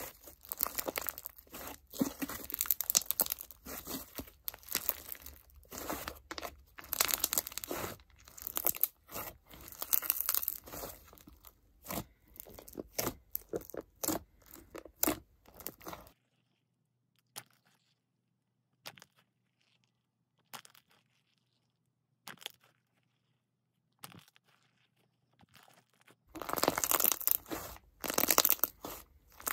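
Clear crunch slime with crunchy blocks mixed in, squeezed and kneaded by hand, giving dense, irregular crackling crunches. About halfway through the sound nearly drops away for some ten seconds, leaving only a few faint clicks. Then the loud crunching starts again near the end.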